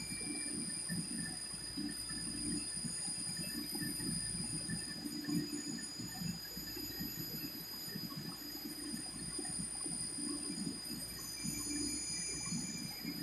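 Schutte 305 Linear CNC tool and cutter grinder running a grinding cycle under coolant spray: a steady wash of spraying coolant and machine noise, with a thin, steady high-pitched whine.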